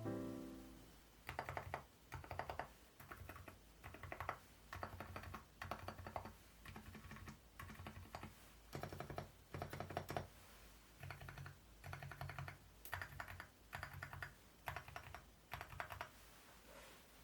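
Large stabilized keys (spacebar, enter, shift and the like) on an Epomaker Galaxy80 keyboard with Nude Rosa silent linear switches and MOA keycaps, pressed one after another as a stabilizer sound test. Each press and release gives a soft, muted clack, about two a second with short pauses.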